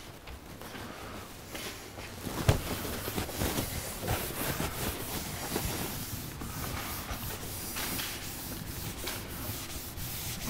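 Rubbing and scraping against a lecture board, with one sharp knock about two and a half seconds in.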